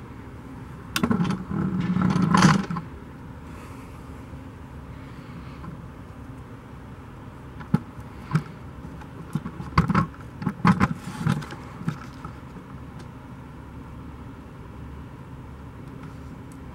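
Road vehicles at an accident scene: a steady low engine hum, and a louder vehicle sound lasting nearly two seconds about a second in. Later comes a run of short sharp knocks.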